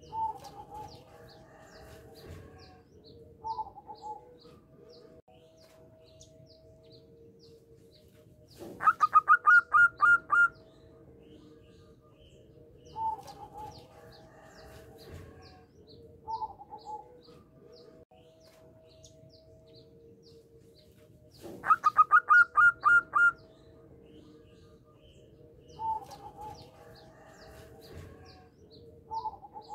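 Zebra dove (perkutut) singing: two rapid runs of loud staccato cooing notes, about nine and twenty-two seconds in, with shorter single coos between them. Faint high chirps repeat in the background.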